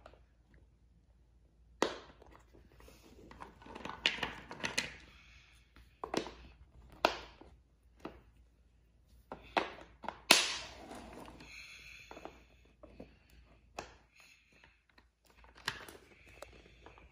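Small plastic interlocking building blocks clicking and clattering as they are pressed together on a wooden floor and picked out of a bowl of pieces: scattered irregular clicks and knocks, the sharpest about ten seconds in.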